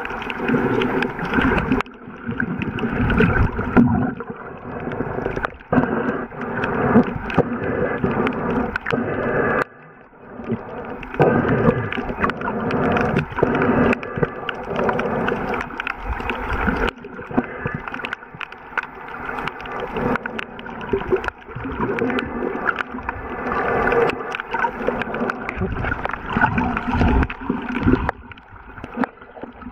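Muffled underwater noise heard through a submerged waterproof camera: water rushing and gurgling around it, with frequent knocks and clicks. It dips briefly about ten seconds in.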